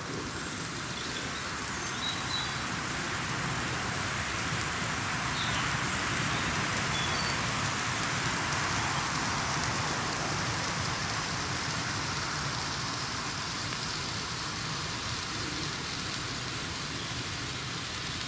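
Jorge JF02 blue firework fountain (Category F1) burning: a steady hiss of spraying sparks that swells a little midway.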